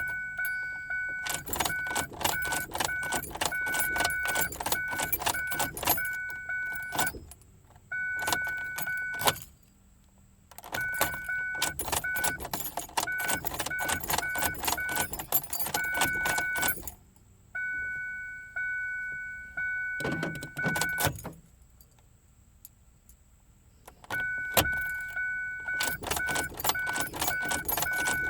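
Keys jangling and clicking on a key ring over the Ford Focus's interior warning chime, which beeps in quick repeated runs at one steady pitch. The sound stops and restarts several times, with a short quiet gap about ten seconds in and another of about two seconds near the end.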